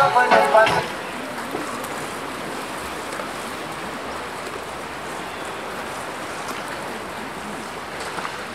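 Steady splashing and churning of pool water as water polo players swim and tussle. A short piece of music cuts off within the first second.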